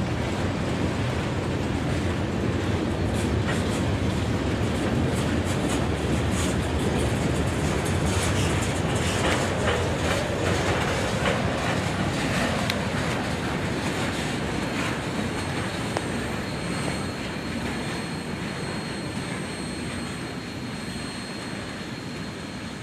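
Freight train's tank cars and covered hoppers rolling past, steel wheels clicking and clattering on the rails. The noise dies away over the last several seconds as the final car draws off.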